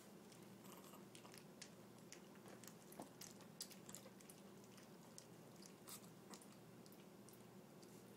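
Four-week-old puppies feeding at a plastic double bowl: faint, irregular little clicks and chewing sounds.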